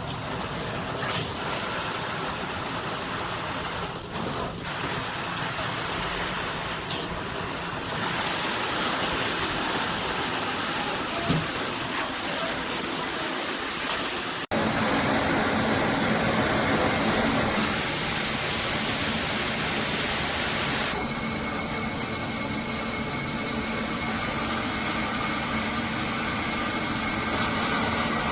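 High-pressure handheld shower head spraying water as a steady hiss. The sound changes abruptly about halfway through, and its character shifts again a few times after that.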